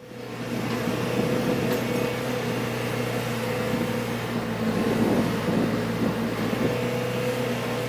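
John Deere 410 loader backhoe engine running at a steady speed, a constant hum that holds one pitch.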